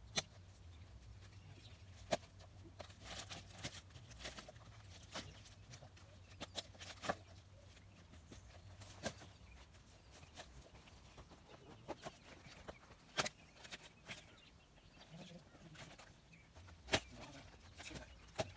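Dry branches knocking and clattering against each other as they are laid onto a firewood stack, in sharp, irregular knocks every second or two.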